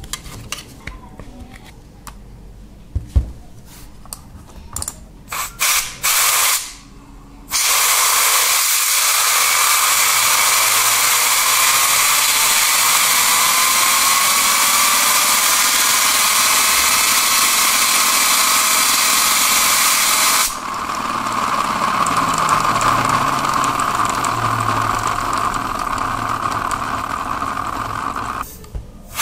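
Can of compressed air blowing on a computer mouse's scroll wheel. It gives several short spurts, then a long steady hiss of about twenty seconds, with a faint whine rising in pitch as the wheel spins up. The hiss changes character partway through and cuts off near the end.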